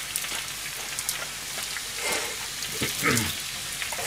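Oil sizzling and crackling in a hot wok while a silicone spatula scrapes loose cabbage shreds across the pan. A short, louder sound with a wavering pitch comes about three seconds in.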